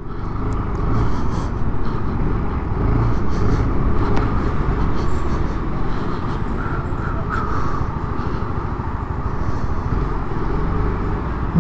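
Motorcycle engine running with steady road and wind noise.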